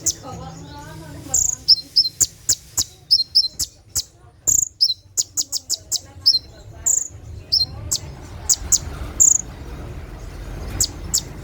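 Kolibri ninja sunbird (konin) giving its 'tembakan' song: a rapid, irregular run of sharp, very high chirps and short whistled notes, with a faint steady low hum beneath.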